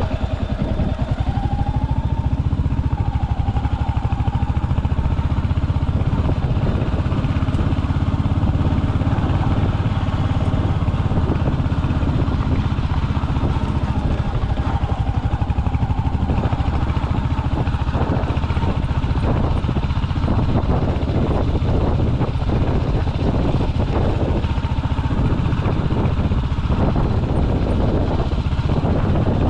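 Royal Enfield Hunter 350's single-cylinder engine running steadily while the bike is ridden, heard close up from the motorcycle. Frequent short knocks join in from about halfway through.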